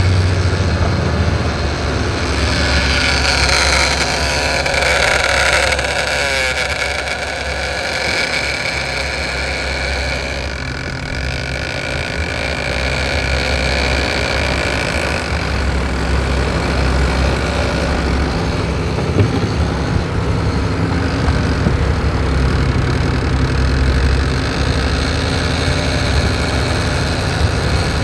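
A sportfishing boat's engine drones steadily while trolling, with the rush of the wake and wind over it.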